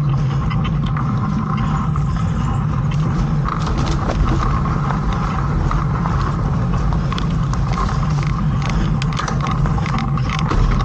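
Mountain bike riding a dirt singletrack, heard from a camera on the bike or rider: a steady rushing noise of the ride with frequent small clicks and rattles from the bike.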